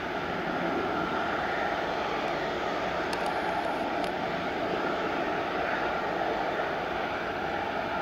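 Airbus A321-211's twin CFM56-5B jet engines as the airliner rolls along the runway after landing: a steady roar with a faint whine held at one pitch.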